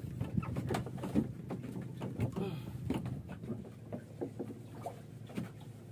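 Irregular light knocks and taps on a small wooden fishing boat, with water slapping at the hull, over a steady low hum.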